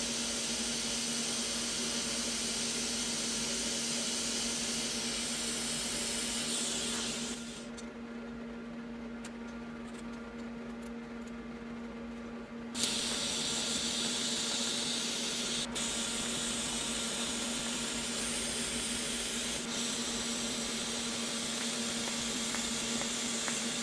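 TIG welding arc on a stainless-steel exhaust manifold flange: a steady hiss over a low, constant hum. The arc cuts out about seven seconds in, stays off for about five seconds, then strikes up again suddenly.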